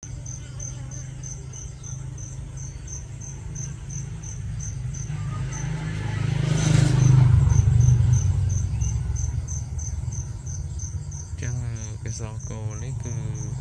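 An insect chirping steadily, a short high-pitched pulse about three or four times a second, over a low hum that grows louder about halfway through.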